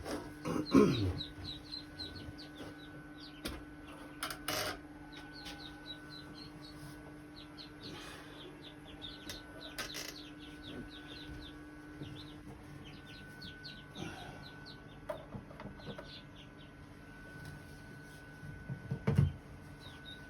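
Ducklings peeping, a scatter of short high chirps throughout, over a steady low hum. A couple of louder knocks come about a second in and again near the end.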